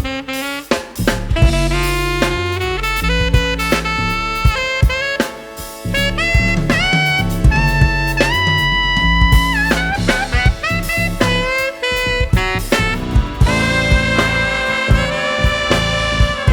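Upbeat jazz background music: saxophone or brass melody over a drum kit with a steady beat.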